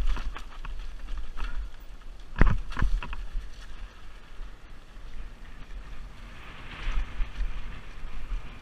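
Mountain bike riding down a rocky dirt singletrack: wind noise on the helmet-mounted microphone, tyres rolling over stones and dirt, and sharp knocks of the bike hitting rocks about two and a half and three seconds in.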